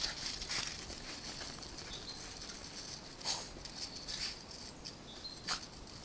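Light crackling and crunching in snow, with two louder scuffs about three and five and a half seconds in.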